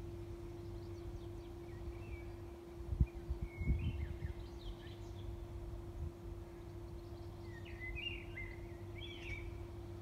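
Small songbirds singing short warbled phrases in two bouts, one about two seconds in and another near the end, over a steady low hum and outdoor rumble. A few low thumps about three seconds in are the loudest sound.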